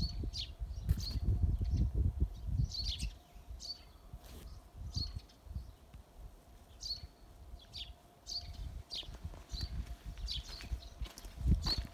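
Small birds chirping: short high chirps repeating every second or so, over a low rumbling noise that fades after about three seconds.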